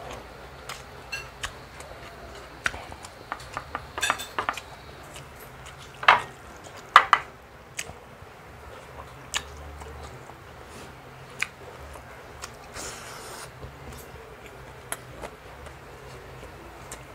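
Cutlery clinking and scraping on a plate while eating, as scattered short clicks and knocks, the loudest about six and seven seconds in.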